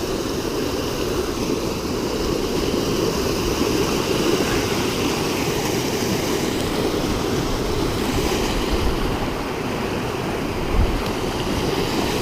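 Rain-swollen stream rushing steadily, with a brief low thump near the end.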